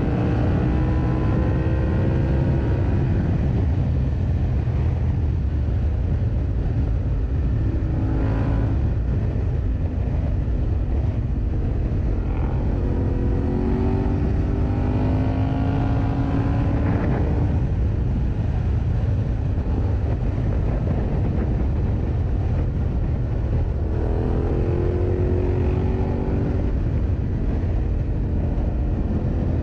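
Yamaha Ténéré 700's parallel-twin engine running under way, its note rising and falling several times with throttle and gear changes, over a steady low rumble.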